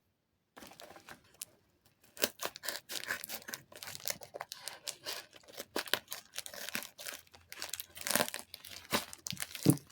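A package's wrapping crinkling and rustling as it is handled, with many quick irregular crackles starting about two seconds in and a few louder crackles near the end.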